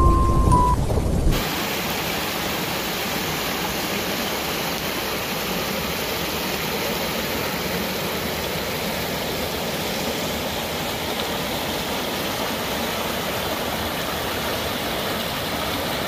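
The tail of the intro music stops about a second in. Then a shallow rocky stream rushes steadily over small cascades between boulders.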